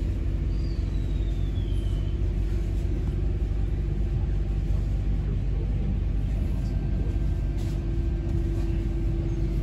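Steady low rumble with a constant hum inside a passenger train carriage, the train standing or barely moving. A brief thin high whistle glides down near the start.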